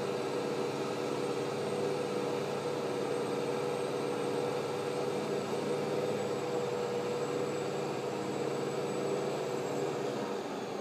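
Large truck idling nearby: a steady engine hum, its low tones dropping away near the end.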